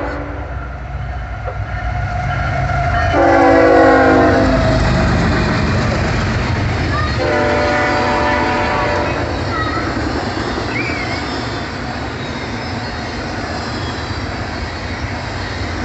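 Freight locomotive horn sounding two chord-like blasts, the first about three seconds in and the louder, the second about seven seconds in. Under them and after them is the steady rumble and wheel clatter of a passing CSX double-stack intermodal train.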